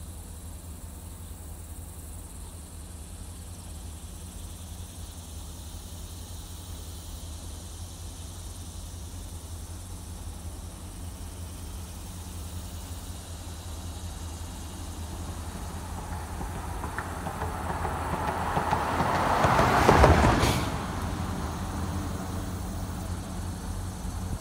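A road vehicle passing close by: its noise swells over several seconds, peaks about twenty seconds in and falls away quickly, over a steady low rumble.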